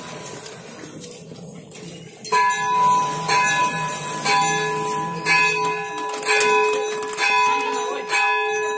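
A metal bell struck about once a second from about two seconds in, each strike sounding the same few pitches and ringing on into the next. Before that, the ring of an earlier strike fades out.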